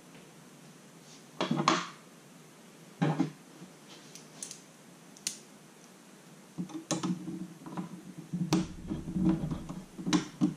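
Snap-together electricity kit pieces being handled and pressed onto a plastic base grid: a series of separate sharp clicks, with handling rustle from the pieces on the board and table in the second half.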